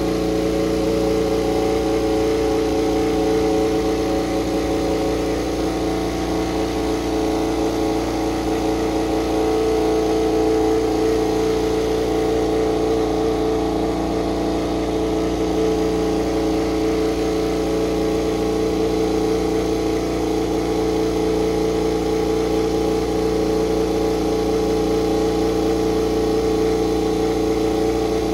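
KTM RC16 MotoGP bike's V4 racing engine, in GasGas livery, running steadily on warm-up, holding an even pitch without revving.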